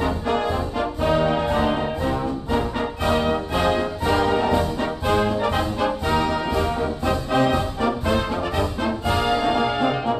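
Background orchestral music led by brass, with held notes over a steady beat.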